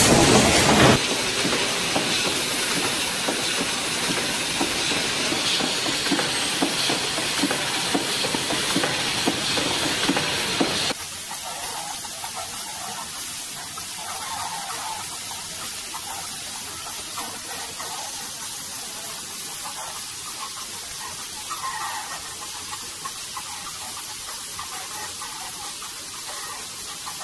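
Automated production machinery running: a steady mechanical noise with a hiss over it, from a semi-automatic servo screen-printing machine and then feeder and assembly machines. The noise steps down to a quieter level about a second in and again about eleven seconds in.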